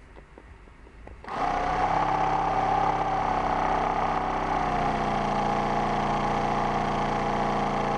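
Model steam engine starting up in reverse about a second in, then running steadily at speed.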